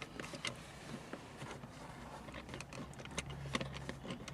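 Small clicks and taps of plastic center console hinge parts being handled and worked apart by hand. About three seconds in, a steady low hum starts up under them.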